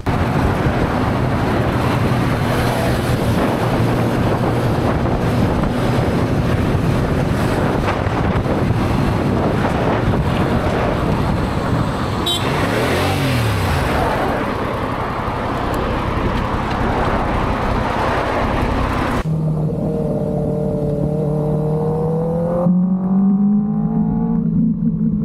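Motorcycle ride heard from an on-bike camera: heavy wind rush with engine noise underneath while riding in traffic. About nineteen seconds in it changes abruptly to a clearer motorcycle engine, its pitch climbing as it accelerates.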